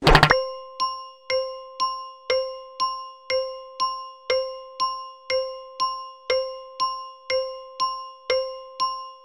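Quiz countdown timer sound effect: a short bell-like ding ticking evenly about twice a second, every other tick louder, after a brief swish at the very start.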